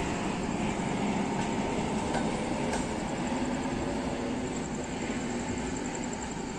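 Passenger train's coaches running through the station at speed without stopping: a steady rumble and rattle of wheels on the rails that slowly gets quieter.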